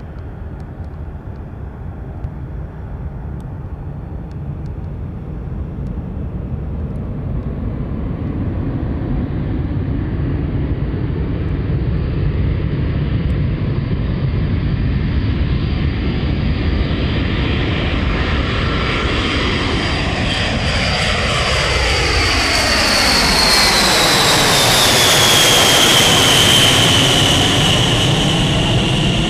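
B-52 Stratofortress's eight TF33 turbofan jet engines at takeoff power, a rumble that grows steadily louder as the bomber rolls, lifts off and climbs out overhead. Near the end a high whine comes in and falls in pitch as the aircraft passes over.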